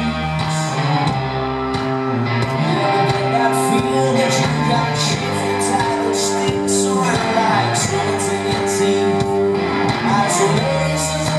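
Rock band playing live: a male lead voice singing over electric guitar, bass and drums, with a slow, steady beat.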